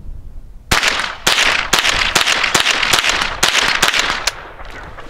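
Henry AR-7 semi-automatic .22 LR survival rifle firing a rapid string of Remington Golden Bullet rounds, loud sharp cracks several a second, starting under a second in and stopping a little after four seconds.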